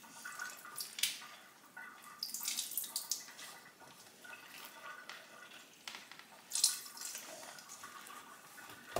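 Water squeezed by hand out of soaked bread rolls, dripping and splashing into a sink in short irregular spurts, the loudest about a second in, from two to three seconds, and near six and a half seconds.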